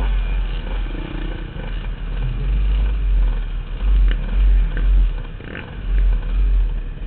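Several dirt bike engines idling and puttering close by, one bike rolling slowly up in front, under a heavy, uneven low rumble on the helmet-mounted microphone.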